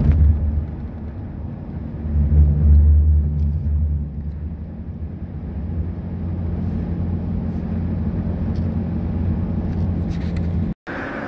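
Steady low drone of a vehicle driving on a wet highway, engine and tyre noise heard from inside the cab, swelling louder for a second or so about two seconds in. It breaks off in a brief dropout near the end.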